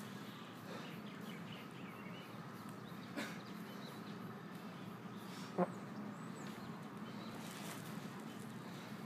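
Faint outdoor background with birds chirping, and two light knocks about three and five and a half seconds in.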